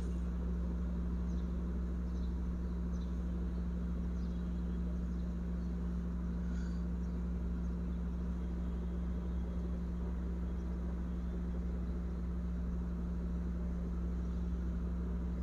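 Steady low hum with a faint even hiss: background room noise, with no other sound standing out.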